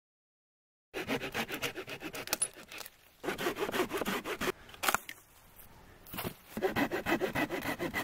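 Hand saw cutting through firewood in quick back-and-forth strokes, in three runs with short pauses, starting about a second in after a moment of silence.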